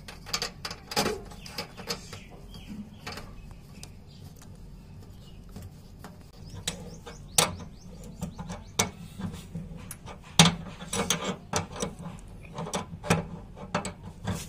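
Metal wrench clicking and knocking against the brass flare nut and service valve of a split AC outdoor unit as the copper pipe's nut is tightened: a run of sharp, irregular clicks, with several louder knocks in the second half.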